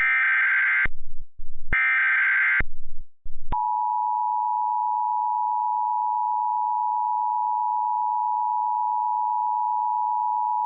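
Emergency Alert System tones. First come two of the roughly one-second, screechy SAME header data bursts that encode the alert. Then, about three and a half seconds in, the steady two-tone EAS attention signal (853 and 960 Hz together) begins and holds, marking the start of an emergency alert.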